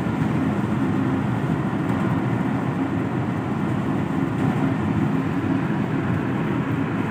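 Hyundai i20 cruising at highway speed, heard from inside the cabin: a steady low rumble of engine and tyre-on-road noise.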